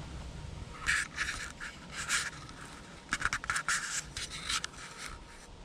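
Dry fallen leaves and brush crunching and rustling underfoot in a slow, irregular string of short scratchy crackles with pauses between them.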